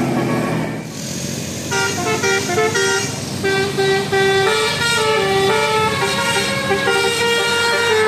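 Bus telolet horn, a multi-tone air horn, playing a fast melody of short stepping notes that starts about two seconds in.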